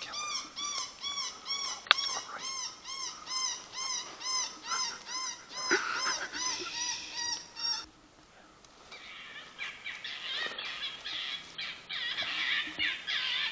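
A rapid, even series of high animal-like calls, each rising and falling in pitch, about three a second. They stop about eight seconds in, and a denser, higher chatter of calls follows.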